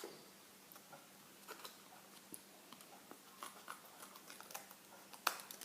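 Faint scattered clicks and light rustles of scissors and a packet being handled to cut it open, with one sharper click about five seconds in.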